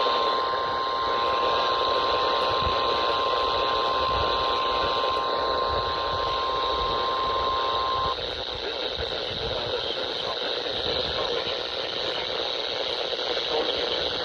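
NOAA Weather Radio alert tone over a receiver: a steady tone near 1 kHz over constant radio hiss, cutting off suddenly about eight seconds in, after which only the hiss remains.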